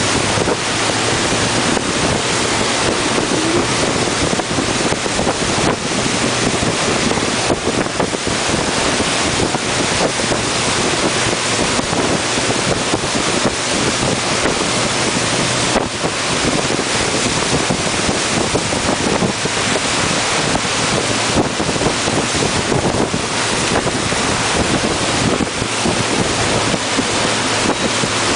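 Steady rush of wind buffeting the microphone together with churning wake water behind a Nautique ski boat running at towing speed, with a low engine hum underneath. The noise is unbroken throughout, with no distinct events.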